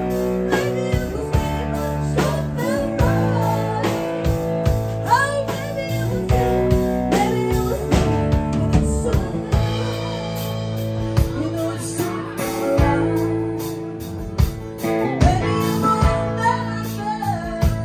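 Live country band playing: a woman singing lead over electric and acoustic guitars, bass and a steady drum beat.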